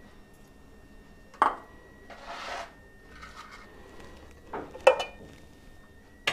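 Kitchen handling sounds: a single knock, a short rustle, then a glass pot lid lifted off a steel pot with a ringing clink near the end.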